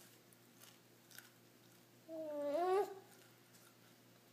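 A short hummed 'mm' from a voice, about two seconds in, lasting under a second and rising in pitch at the end. Around it are faint clicks of a baby chewing puff snacks.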